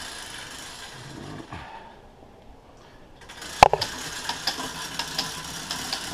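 The LLC Quadra Sprint's chain drivetrain being pedalled by hand: the chain and rear gear cluster whir for about two seconds, then a sharp clack about three and a half seconds in. This is followed by the freewheel's pawls ticking a few times a second as the gears are run through.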